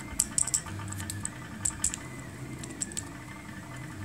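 A metal pick clicking and scraping against the headlamp's small threaded metal part as it is pushed round to unscrew it: irregular small clicks in little clusters.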